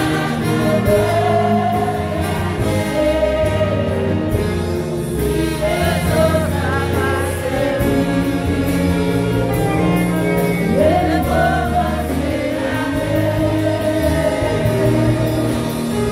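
A congregation and choir sing a Haitian Creole gospel worship song over instrumental accompaniment, with a steady low bass line under the voices.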